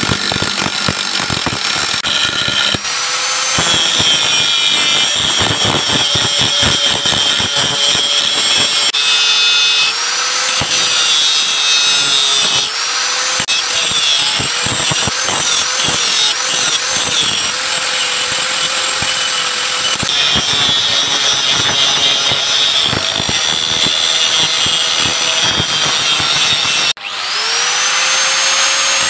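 Handheld angle grinder grinding hardened leaf-spring steel, its motor whine sagging in pitch each time the disc bites into the metal and recovering as it eases off. Near the end the sound drops out for a moment, then the grinder spins back up with a rising whine.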